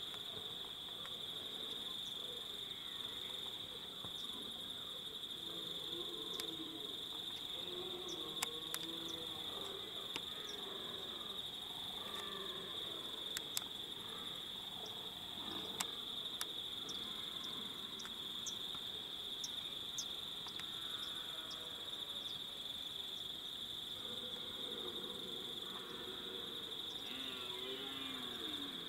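A steady, unbroken high-pitched insect chorus, with a few faint sharp clicks in the middle.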